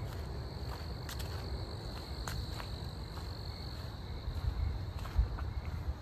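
Crickets trilling steadily on one high note, fading out about four seconds in, over a low rumble, with a single thump near the end.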